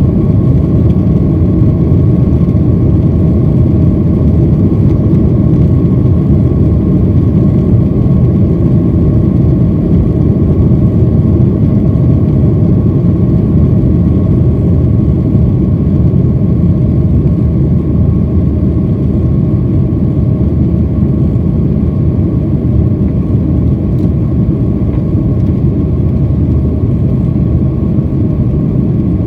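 Cabin noise of a Boeing 737-800 climbing out after takeoff: the steady, loud rumble of its CFM56 jet engines and the rushing air, with a faint steady whine above it.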